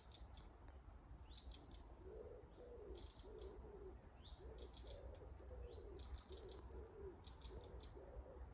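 Faint wood pigeon cooing in a run of low, repeated phrases that starts about two seconds in, with a small bird's high chirps repeating every second or so.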